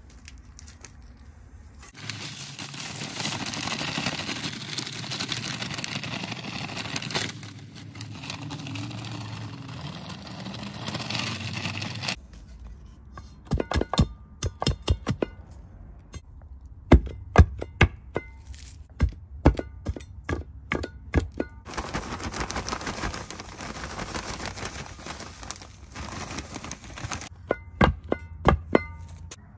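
Sand being worked for a paver bed with hand tools: about ten seconds of steady scraping and pouring noise, then a long run of sharp thunks and knocks, several in quick clusters, some with a short metallic ring.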